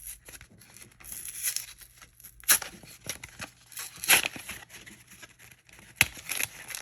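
Foil trading-card booster pack wrapper crinkling and being torn open, in irregular crackles with a few sharp, louder rips.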